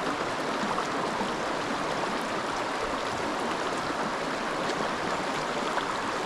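Creek water rushing steadily over rocks, a continuous even hiss with no change.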